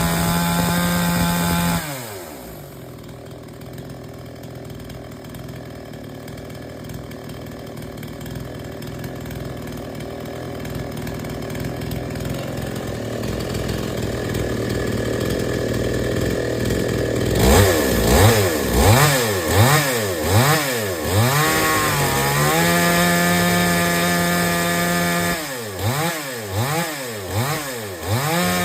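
Petrol chainsaw engine running fast, dropping to a quieter idle about two seconds in, then revved repeatedly in quick throttle blips, held high, blipped again and held high near the end. It is being test-run after its carburetor's high and low mixture screws were reset.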